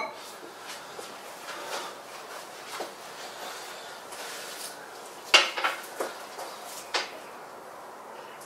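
Iron weight plates clanking on a barbell as they are handled and loaded onto the bar: a few faint knocks, then a cluster of sharp ringing metal clanks a little past halfway, and one more clank about a second and a half later.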